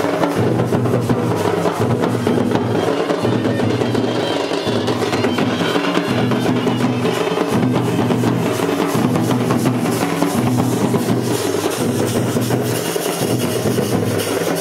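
A band of large stick-beaten drums playing a fast, steady, repeating rhythm.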